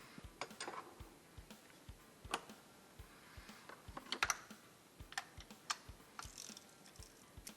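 Scattered light clicks and taps of small hand tools and parts being handled, irregular and quiet, over a faint low thump repeating about twice a second.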